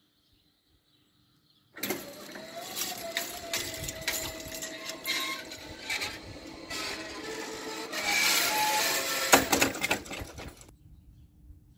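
Level-crossing barrier rising: an electric drive whining with a wavering tone while the barrier arm and its hanging grille rattle, starting about two seconds in and stopping abruptly near the end.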